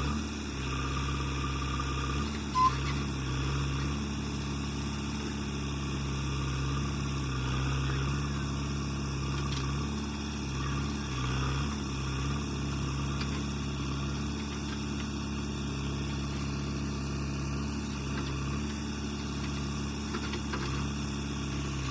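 JCB 3DX backhoe loader's diesel engine running steadily with a low drone that rises and falls slightly as it works. A single short, sharp high blip about two and a half seconds in.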